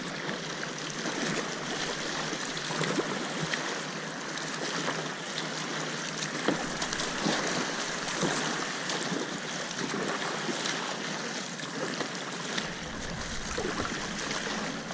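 Kayak paddle strokes dipping into choppy water, each stroke giving a small splash over a steady wash of water against the kayak's hull.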